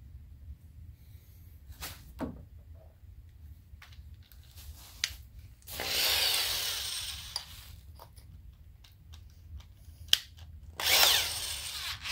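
Corded electric drill run in two short bursts, the first about two seconds long and the second about one, with clicks and knocks of handling between them.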